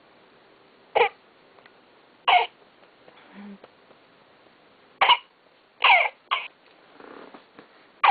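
Electronic infant simulator doll coughing: five short coughs, spaced a second or more apart at first and the last two close together.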